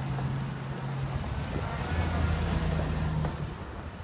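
A motor vehicle engine running on the street, a steady low hum that drops to a lower pitch about a second and a half in.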